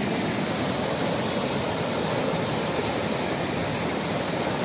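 Shallow stream water rushing over flat rock at the brink of a waterfall: a steady, even rush.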